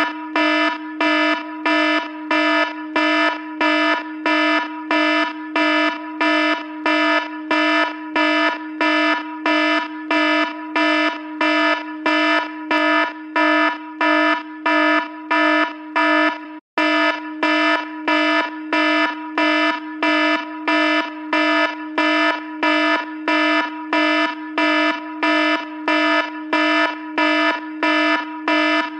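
Phone alarm ringtone: a pitched electronic beep repeating about twice a second over a steady low tone, which breaks off for an instant about midway through.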